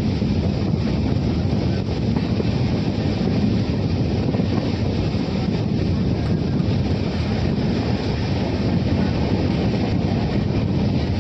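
Steady rumble of a passenger train running along the track, heard from on board a coach.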